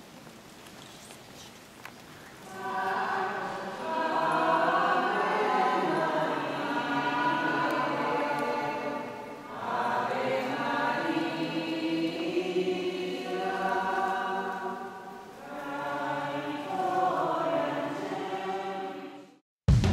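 A group of voices singing a hymn together in a large church. The singing starts a few seconds in and runs in several long phrases with short pauses between them, then cuts off abruptly near the end.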